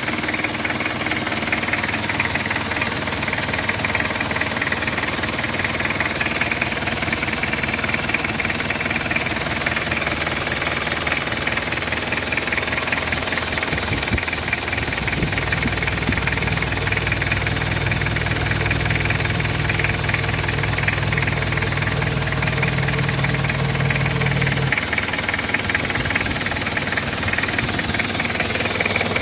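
Isuzu Panther 2.3's four-cylinder diesel engine running steadily with a fast, even clatter, which the seller presents as sound and healthy. About halfway through, a deeper hum joins in and stops suddenly about ten seconds later.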